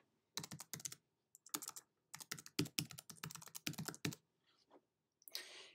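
Computer keyboard typing: a quick, faint run of key clicks with short gaps as a web address is typed, stopping about four seconds in.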